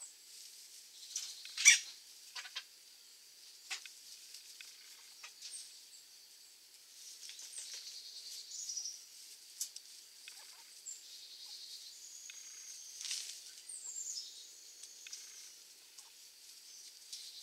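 Chickens foraging in dry grass: scattered pecks, scratches and rustles, with one sharp click about two seconds in the loudest. Thin high chirps and whistles come and go through the middle and latter part.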